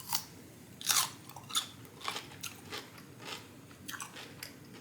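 Biting into a crisp homemade refrigerator pickle, then chewing it, with loud crunches. The sharp crunch shows the pickle stayed firm after 24 hours in the brine.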